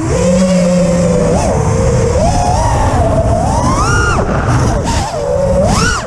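FPV quadcopter's brushless motors and propellers whining, the pitch rising and falling with the throttle and climbing sharply about four seconds in and again just before the end, with wind rumbling on the onboard microphone.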